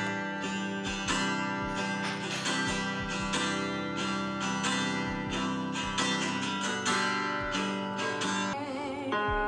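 Chill background music: plucked guitar notes over a held bass line, with soft low beats.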